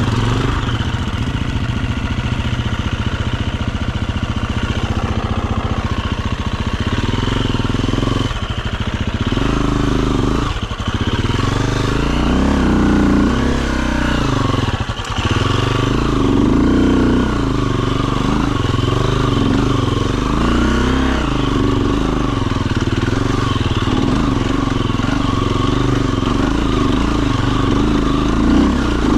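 Enduro dirt bike engine running under changing throttle: steady at first, then revving up and down repeatedly from about a third of the way in, with a few brief throttle cuts.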